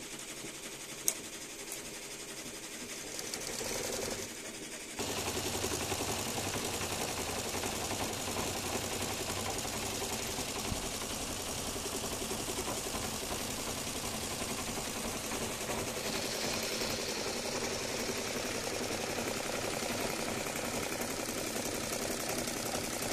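Multi-needle embroidery machine stitching at speed: a fast, steady mechanical chatter of needle strokes. It dips briefly and then gets louder about five seconds in.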